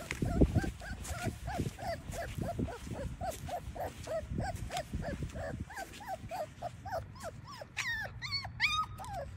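Great Dane puppy whimpering in a steady run of short, high cries, about three a second, breaking into higher squeals near the end.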